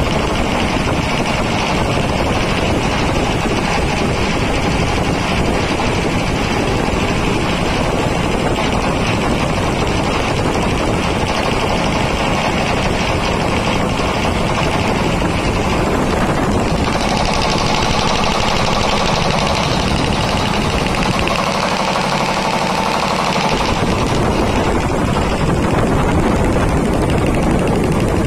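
Piston air compressor running, a loud, steady mechanical clatter.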